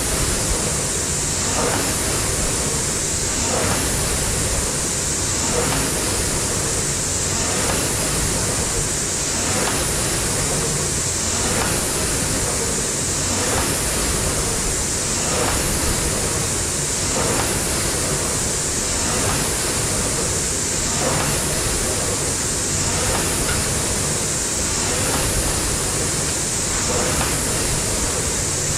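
Concept2-style rowing machine in use: the flywheel spins with a steady rushing noise that surges with each stroke, about one stroke every two seconds.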